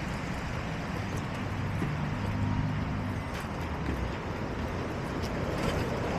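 Steady outdoor background rumble of road traffic, with a low engine hum that swells about two seconds in and fades after three and a half.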